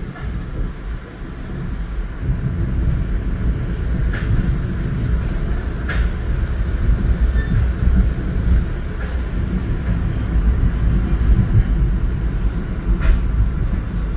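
Metro-North commuter train running at speed, heard from inside the passenger car: a steady low rumble of wheels on rail that builds over the first couple of seconds, with a few sharp clicks from the track.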